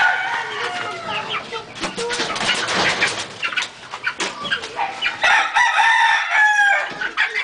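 Gamecocks in wire-mesh coops clucking and calling, with a drawn-out crow-like call about five seconds in. A burst of rustling and knocking from about two to three and a half seconds in comes as the coops are handled.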